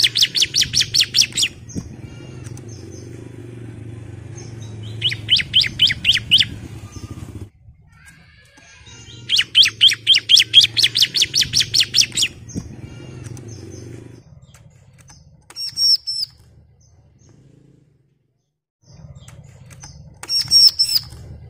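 Bar-winged prinia (ciblek) singing its rapid 'nembak' trill: three fast runs of sharp repeated high notes, each lasting one to three seconds, then two short, higher calls near the end.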